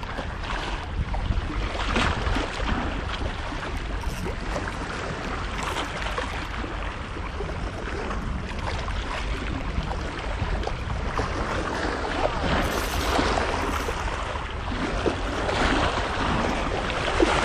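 Steady wind buffeting the microphone as a low rumble, over a constant rush of choppy sea water.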